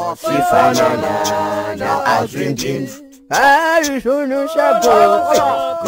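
A cappella group singing, several voices holding long notes in harmony, breaking off briefly about three seconds in.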